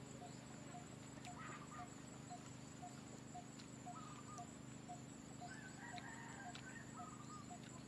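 Faint farmyard sounds: chickens calling, with a rooster crowing in the distance about five and a half seconds in. Under them a bird repeats one short note about twice a second.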